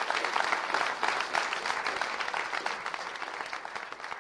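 Audience applauding, a dense patter of many hands clapping that slowly dies down.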